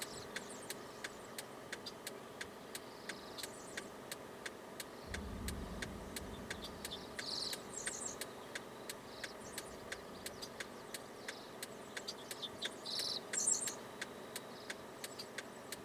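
A car's indicator flasher ticking steadily, about two to three ticks a second, with short high chirping calls every couple of seconds and a brief low rumble about five seconds in.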